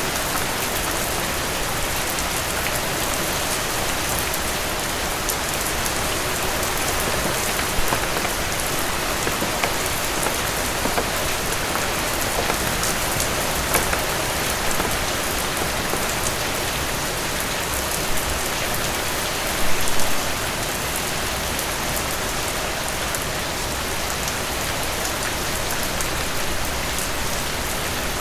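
Heavy rain falling steadily, a dense even hiss with scattered individual drop hits. A brief louder spatter about twenty seconds in.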